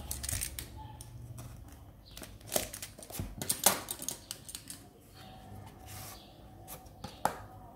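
Cardboard box being handled and its inner tray slid out of the paperboard sleeve: scraping rubs and small taps and clicks, busiest in the middle, with one sharp click near the end.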